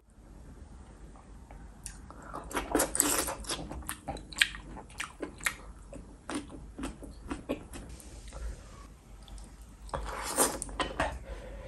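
Close-miked eating sounds of a person chewing mushrooms in sauce: irregular wet smacks and soft crunchy bites. It starts faint, with a louder run of bites and chewing about ten seconds in.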